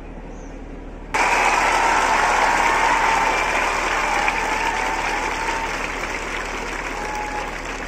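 A crowd applauding. The clapping starts suddenly about a second in and slowly fades.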